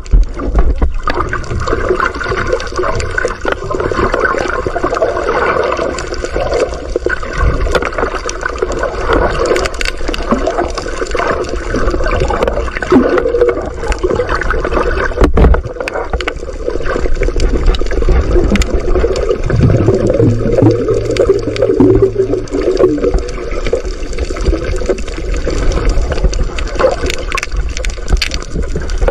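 Muffled gurgling and sloshing water heard from a camera held just under the surface. A low steady hum rises for a couple of seconds about two-thirds of the way through.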